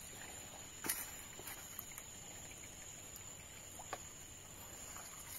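Quiet outdoor ambience with a steady high-pitched whine throughout, broken by a few brief clicks and knocks from handling close to the microphone, the loudest about a second in and another near four seconds.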